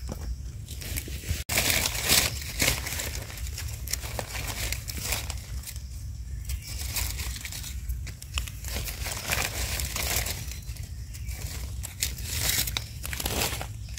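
Dry leaf litter and undergrowth rustling and crinkling in irregular bursts as hands push through it and handle freshly picked mushrooms.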